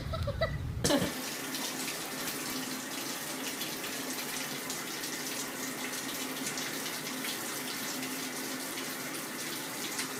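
Steady running water in a tiled bathroom, starting about a second in after a few short knocks.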